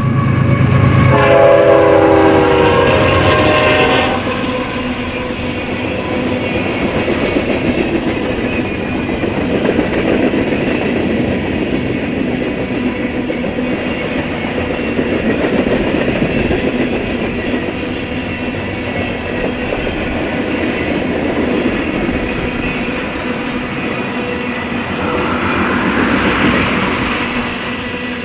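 Union Pacific freight train passing close at speed: the lead GE C45ACCTE diesel locomotive's air horn sounds for about the first four seconds over the engines' rumble. Then the freight cars roll by, a steady rumble of steel wheels on rail with clickety-clack, swelling louder near the end.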